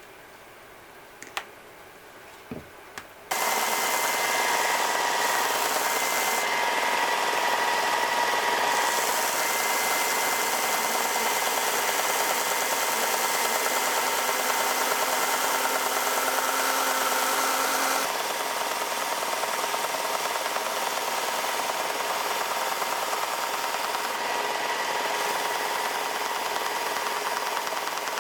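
A few light clicks, then about three seconds in a small electric motor switches on and runs steadily, a loud hissing rush with a steady whine. Its sound shifts slightly about eighteen seconds in.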